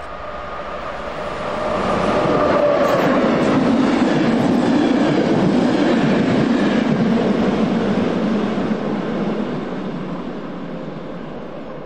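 Class 460 'Tornádo' electric multiple unit passing by on the rails: the sound swells over the first couple of seconds, stays loud for several seconds with wheel and rail noise, then fades away near the end.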